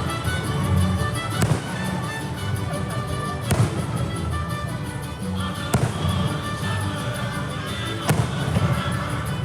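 Fireworks bursting over the show's music soundtrack: four sharp bangs about two seconds apart, with held musical notes running underneath.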